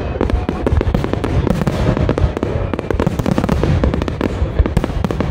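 Fireworks finale: a dense, unbroken barrage of shell bursts and crackle, many bangs a second with no pause.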